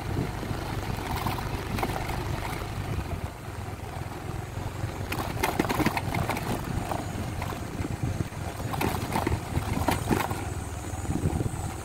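Yamaha NMax 155 scooter's single-cylinder four-stroke engine running steadily while riding up a rough dirt road, with scattered knocks and rattles from the bumps.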